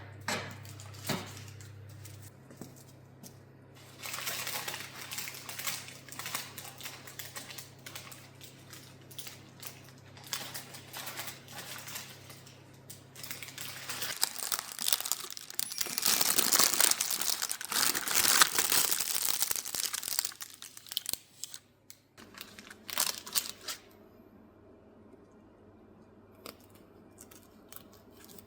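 Irregular crinkling and rustling, like something being handled, crumpled or torn, louder and denser for several seconds midway, followed by a few sharp clicks and then quiet with a faint low hum.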